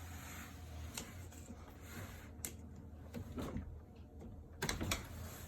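Faint scattered clicks and knocks of small stairlift parts being handled and worked loose, with a short cluster of knocks near the end, over a low steady hum.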